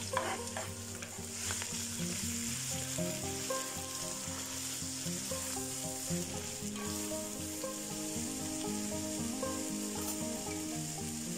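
Chopped vegetables for borscht sizzling as they fry in oil in a kazan, stirred with a wooden spoon, with a few clatters right at the start as the last of them are tipped from the board into the pot.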